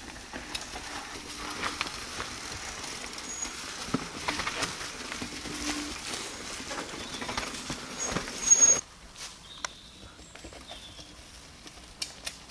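Mountain bikes rolling down a rocky dirt trail: tyres crunching over stones and roots, with scattered clicks and rattles from the bikes and a brief high squeal about eight seconds in. The sound drops quieter about nine seconds in.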